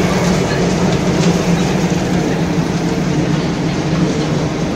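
Machinery of a hot-air popcorn production line running, including the inclined belt conveyor carrying popcorn: a loud, steady mechanical din with a constant low hum.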